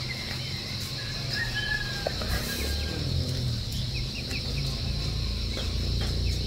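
Chickens clucking and small birds chirping, over a steady high-pitched drone and a low rumble.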